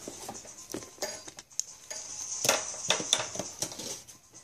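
Metal clinks and knocks as a homebuilt MOSFET amplifier's metal case is handled and turned over, with a cluster of clinks a little past halfway.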